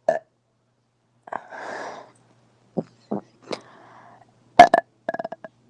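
A woman burping in a series of short burps with breathy noises between them. The loudest are two close together near the end, followed by a quick string of short pulses.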